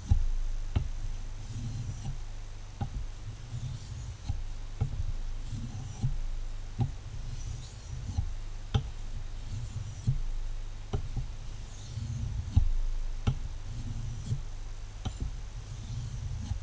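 A carbon-steel knife blade worked in strokes across a Japanese water stone, about one stroke a second, each marked by a light tick and a low scraping rumble as the blade passes over the wet stone.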